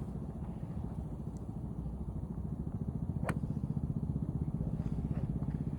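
A steady low motor rumble, with one sharp click of a golf club striking a ball about three seconds in.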